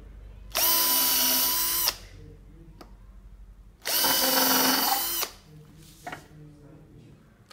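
Cordless drill drilling holes into a wooden chair's leg and stretcher joints, two steady bursts of the motor's whine about a second and a half each, the second with more grinding from the bit cutting wood.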